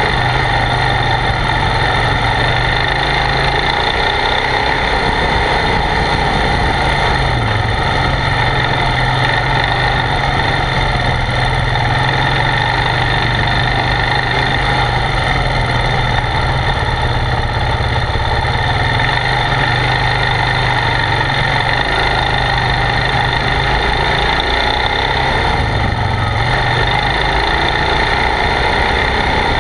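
ATV engine running steadily as the quad is ridden along a dirt trail, its note rising and dipping slightly with the throttle a few times, over a constant rush of noise.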